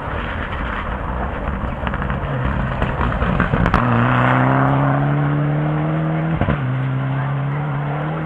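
Rally car on a gravel stage under hard acceleration, its engine getting louder as it comes closer. From about four seconds in it holds a strong, steady note, broken briefly by a gear change about six and a half seconds in, over the hiss of tyres on loose gravel.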